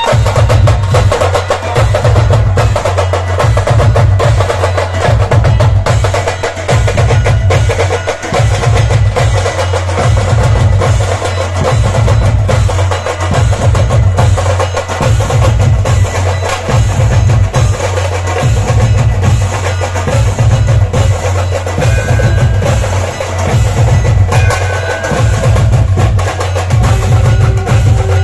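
Dhol-tasha drumming: the snare-like tashas play rapid dense strokes over the deep dhols, which beat in a steady repeating pattern about once a second.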